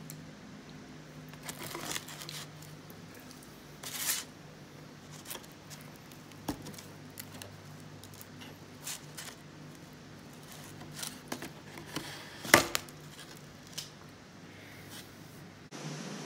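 A knife cutting through a nut-topped glazed doughnut in a cardboard box: scattered crunches, rustles and taps, the sharpest about twelve and a half seconds in.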